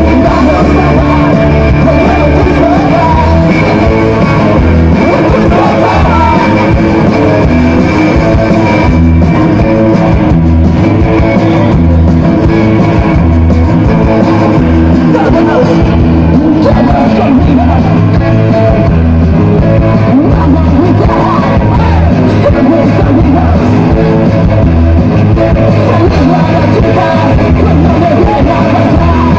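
Live garage-punk band playing loud: electric guitars, bass and drums, with the lead singer singing into the microphone.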